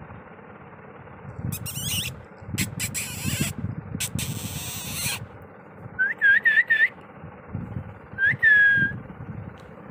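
Kittens mewing: four short, high mews in quick succession about six seconds in, then one longer mew that dips in pitch. Before them come a few brief scratchy noises.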